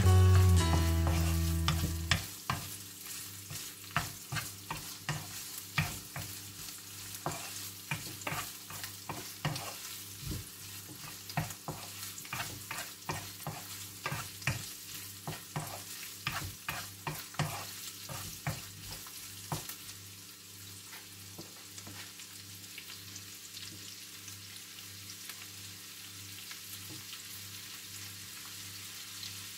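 Garlic and onion sizzling in a nonstick wok, stirred with a wooden spatula that knocks and scrapes against the pan in quick strokes. The stirring stops about two-thirds of the way through and the steady frying hiss goes on alone. Background music fades out in the first two seconds.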